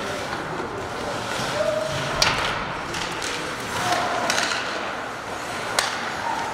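Ice hockey play: skates scraping on the ice under a steady background of arena noise, with sharp cracks of stick and puck, at about two seconds in and again near six seconds, and a few short calls from voices.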